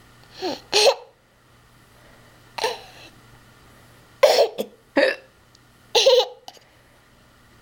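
Someone hiccuping: about six short, sudden voiced hics at uneven gaps, some with a laugh in them.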